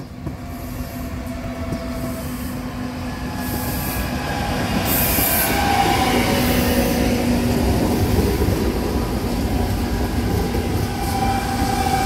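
Electric multiple-unit passenger train running past at close range as it brakes into a station platform. Its rumble grows louder over the first several seconds, and steady high squealing tones from the wheels and brakes sound above it.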